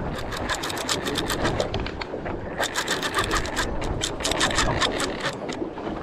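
Fishing reel clicking rapidly while the angler fights a hooked fish on a bent rod, in two runs with a short break about two seconds in. Wind and water hiss underneath.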